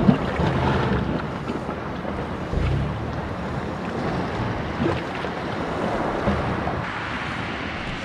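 Small sea waves washing against a rocky shore, with wind gusting on the microphone.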